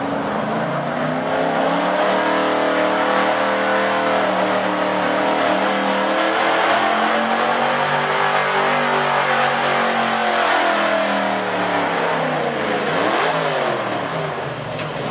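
Gas V8 engine of a Chevrolet square-body pulling truck running at high revs under heavy load as it drags a weight sled, its pitch wavering up and down through the pull. Near the end the revs drop sharply and pick up again.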